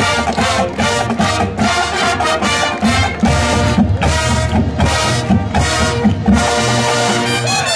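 Marching band playing: brass chords in short rhythmic phrases over drum hits.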